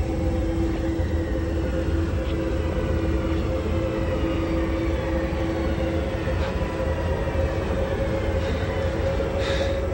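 Steady low rumble of an airliner cabin in flight, with a sustained droning hum over it and a brief hissing sound near the end.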